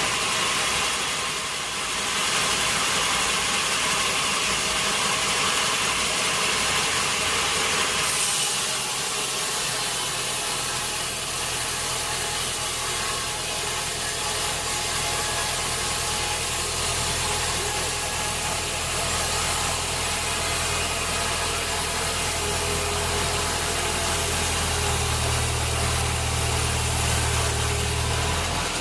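Sawmill machinery running with a steady mechanical noise and hiss. The hiss eases about eight seconds in, then a low hum comes in, grows stronger near the end, and stops just before it.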